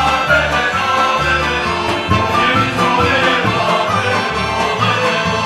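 Serbian folk dance music from the Niš region, played by an instrumental ensemble with a melody over a steady, pulsing bass.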